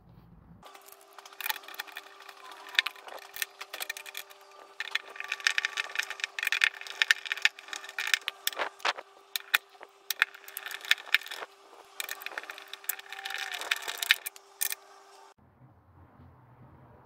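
Hand screwdriver turning a screw into a metal fitting on a wooden chest: many irregular metallic clicks and scrapes. A steady hum runs behind them and stops a couple of seconds before the end.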